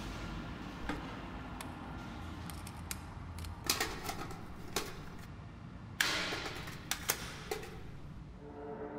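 Sharp plastic clicks and clacks of a cassette tape being handled and loaded into a portable cassette player; the loudest clack comes about six seconds in, with a quick pair of clicks about a second later. Near the end, steady sustained tones begin.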